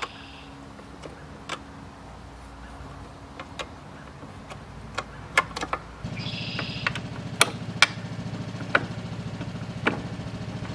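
A small engine running steadily, becoming louder about six seconds in, with scattered sharp clicks and ticks over it.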